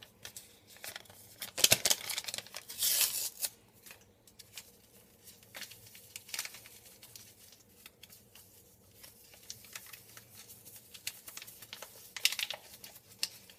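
Vanilla sugar sachets being torn open and crinkled in the hands, with sharp tearing about two and three seconds in and again near the end, and soft crinkling between.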